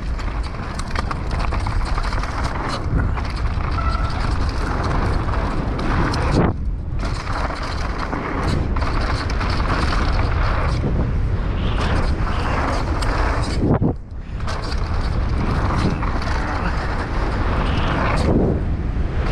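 Mountain bike ridden fast down a dirt jump trail, recorded on the bike-mounted camera: a steady rush of tyre roar, chassis rattle and wind buffeting on the microphone. The noise drops out briefly twice, about six and a half and fourteen seconds in, as the bike leaves the ground over jumps.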